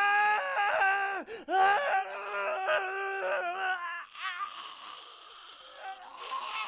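A high-pitched voice crying and wailing in several long, wavering cries, which stop about three and a half seconds in and give way to a quieter hiss.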